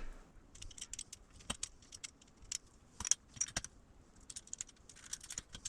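Wire shelf and J-hook bolts clinking and rattling lightly against a metal wire shelving rack as they are handled: scattered faint, sharp metallic clicks, a few louder ones, with a short cluster near the end.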